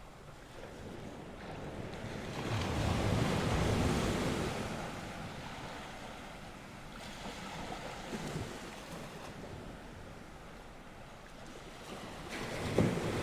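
North Sea waves breaking and washing on the shore, swelling and easing twice, with wind buffeting the microphone.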